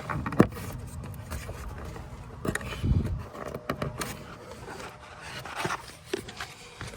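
Scattered clicks, knocks and scrapes of hands working behind a van's headlight housing to fit a bulb, with a dull thump about three seconds in.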